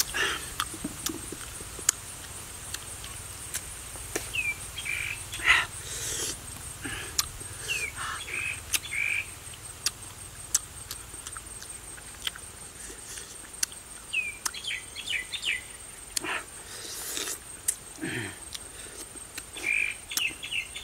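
Birds chirping and a steady high-pitched insect trill, with frequent sharp clicks and smacks of a person chewing langsat fruit.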